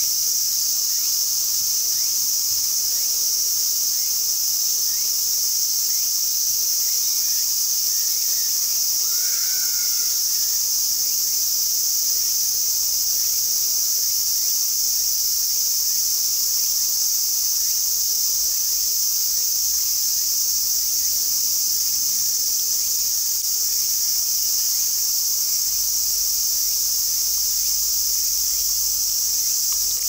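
Chorus of insects in woodland, a continuous high-pitched drone that holds steady and unbroken throughout.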